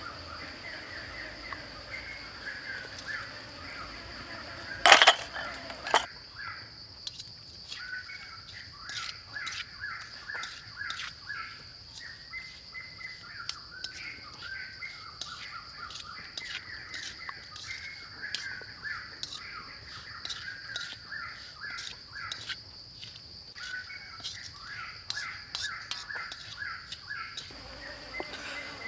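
A steady high insect drone with short bird calls repeating over it, a sharp loud clatter about five seconds in, and scattered soft clicks as hands toss raw shrimp and sliced pig ear in a steel wok.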